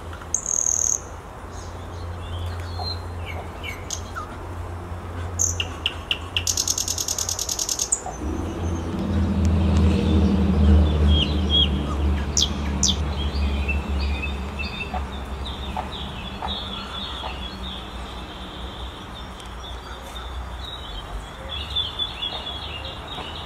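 Small birds chirping again and again, with a short rapid rattle about seven seconds in. Under them a low motor hum swells from about eight seconds in and then fades.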